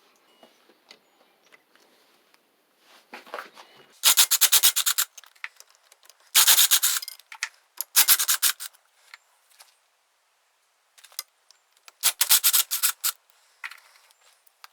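Hand ratchet wrench clicking in short runs of about a second, four times, as bolts are backed out of a small engine.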